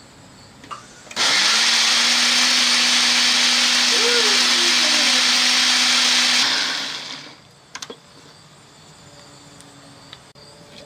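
Small personal blender switching on about a second in and running at full speed for about five seconds with a steady hum, then spinning down, followed by a few light clicks. It is grinding soaked rice, white radish and water into rice batter.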